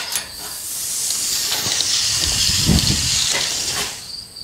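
A steel tape measure's blade paying out of its case as it is walked across the garage, a steady hiss that builds, holds for about three seconds and fades, with a brief deeper rumble a little past the middle.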